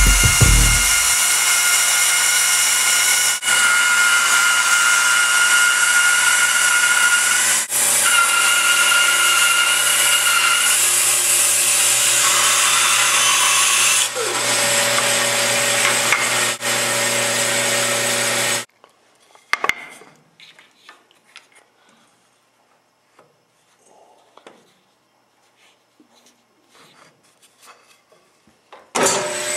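Bandsaw running and ripping thin strips off a wood board: a steady whirring hiss with a few steady tones. After about two-thirds it cuts off suddenly, leaving quiet scattered knocks and handling sounds of wood, and near the very end the saw noise returns.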